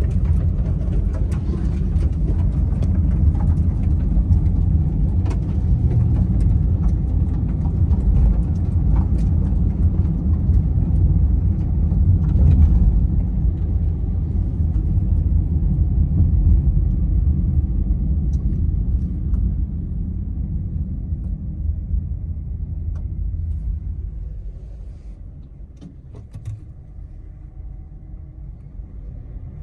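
Steady low road-and-engine rumble inside the cabin of a moving car, with faint scattered ticks. It grows much quieter about 24 seconds in.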